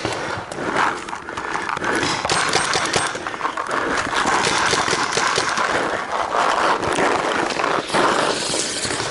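Paintball markers firing in rapid volleys: many sharp pops in quick succession.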